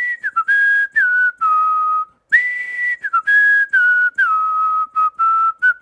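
A whistled tune: a single clear whistled melody with some breath noise. Each phrase starts on a long held high note, then steps down through shorter notes with slides between pitches. The phrase comes twice, with a short break about two seconds in.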